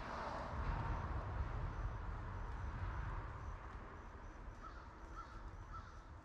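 A passing car's tyre noise fades away over the first few seconds. About five seconds in, a crow caws three times.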